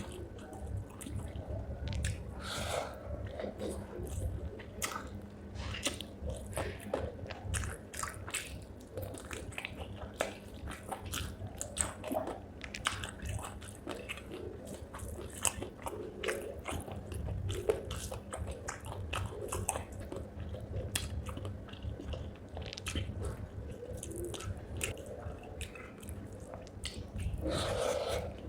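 Close-up chewing and biting on spicy chicken feet with rice: steady irregular mouth clicks and crunches throughout.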